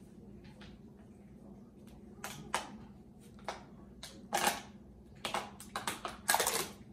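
Irregular clicks, knocks and short rustles of things being handled and moved about, several in quick succession from about two seconds in, over a low steady hum.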